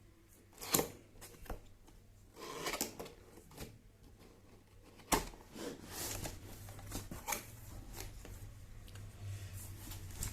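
Cardboard keyboard box being opened and handled: a few sharp knocks, about one and five seconds in, with scraping and rustling of cardboard and packing in between.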